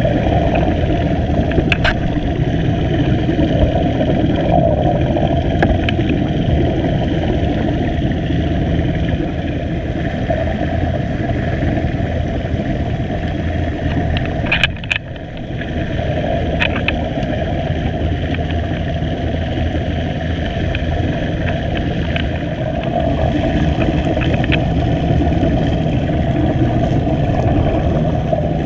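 Steady, muffled underwater rumble with a low hum, heard by a submerged camera among underwater scooters and their air bubbles. A few short clicks and a brief drop in level come about halfway through.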